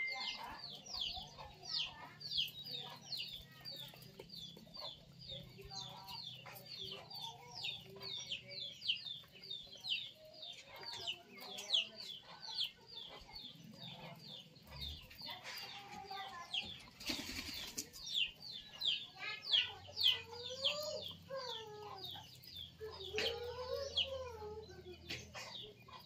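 Birds chirping rapidly in the background, short high falling chirps several a second without a break, while pigeons peck grain on concrete. About two-thirds of the way through there is a brief rush of wing flapping, and near the end some lower rising-and-falling calls.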